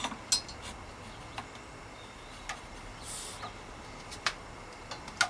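Scattered light clicks and knocks as bicycle handlebars, with their levers and brake cable, are handled and slid out of the stem. About three seconds in there is a brief hiss.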